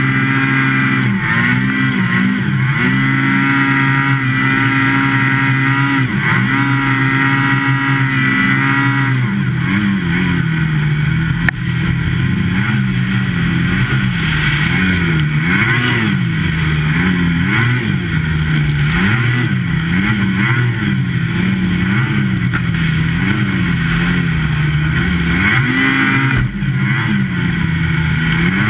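Motorized snow sled's engine running hard in deep powder. It holds a steady pitch for the first several seconds, then revs up and down about once a second through the rest.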